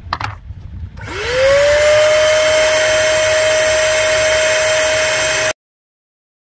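Wet-and-dry vacuum cleaner switched on after a brief knock: its motor whines up to speed within about half a second, then runs with a steady high whine until it cuts off suddenly.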